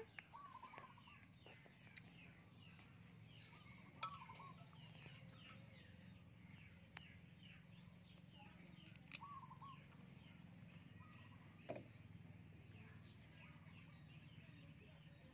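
Quiet outdoor ambience: small birds chirping over a faint low hum, with repeated high trills and a couple of sharp clicks.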